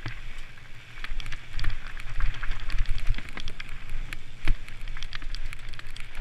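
Mountain bike ride on rocky gravel trail heard from the bike: wind rumbling on the microphone over tyres crunching on dirt and stones, with the bike rattling in many quick clicks and one sharp knock about four and a half seconds in.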